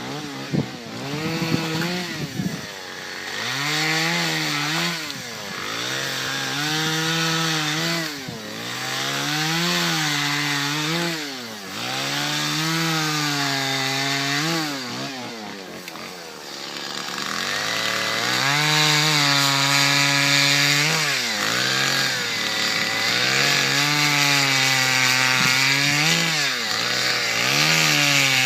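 Chainsaw cutting wood, its engine revving up and dropping in pitch about every two seconds as it bites into the cut. About halfway through it settles into steadier high revs.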